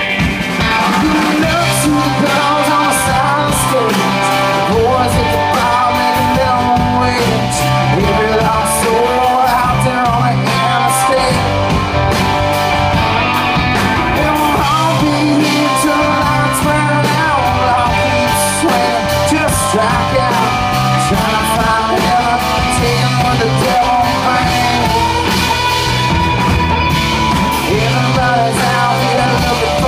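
Live rock band playing loudly: electric guitars, electric bass and a drum kit, with a man singing over them.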